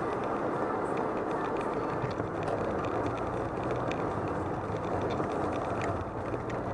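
Inside a car driving on a wet road in the rain: a steady rush of tyre and road noise over the engine's low hum, with scattered light ticks of raindrops hitting the windscreen.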